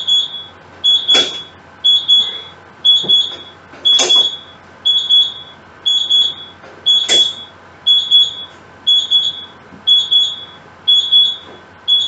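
Electric oven's timer alarm beeping: a high-pitched double beep about once a second, going on until it is switched off near the end, the signal that the cooking time is up. A sharper click sounds about every three seconds.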